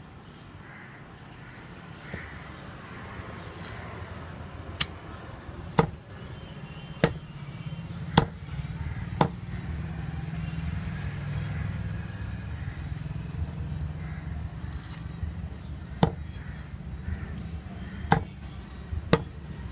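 Large broad-bladed chopping knife chopping dove meat and small bones on a wooden chopping block: about nine sharp single chops at uneven intervals, with a pause of several seconds in the middle. A steady low hum runs underneath, louder in the second half.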